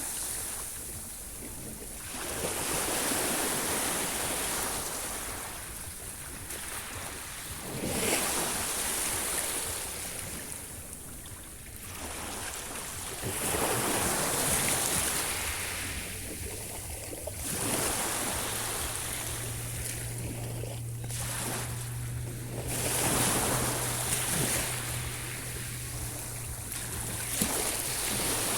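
Sea waves breaking and washing ashore, swelling and fading about every five seconds. A low steady hum comes in about halfway through and continues.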